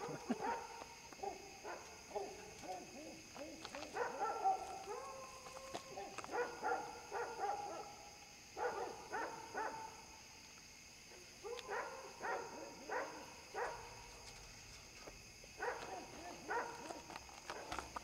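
Dogs barking and yipping, in bouts of several quick calls a few seconds apart, over a steady high-pitched drone.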